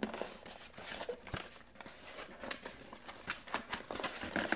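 Cardboard box of a reed diffuser being handled and opened: soft rustling with many small, irregular clicks and taps.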